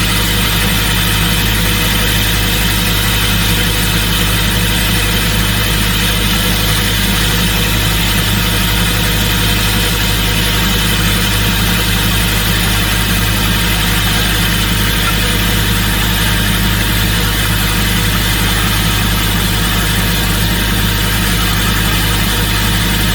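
Excavator-mounted hydraulic rock core drill running steadily on the excavator's diesel engine, a constant machine drone with a fixed hum that does not change.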